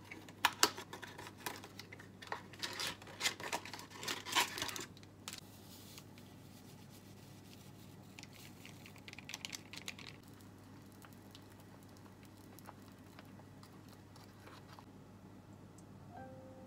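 Packaging being crinkled and torn open, a box and plastic stick packets of instant matcha latte powder, in a dense run of crackles over the first five seconds. About eight seconds in comes a soft hiss as powder is shaken from a stick into a glass bowl.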